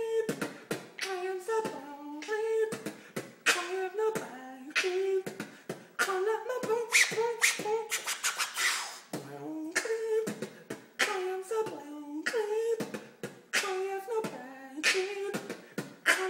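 Solo human beatboxing with a hand cupped at the mouth: a steady beat of sharp mouth-made drum hits, with a hummed melody stepping up and down in pitch underneath.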